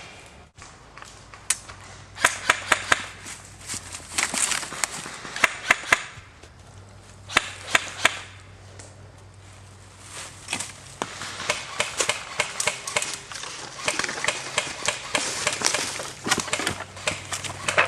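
Rustling and crunching with many irregular sharp snaps and clicks, as of someone moving on foot through dry woodland undergrowth.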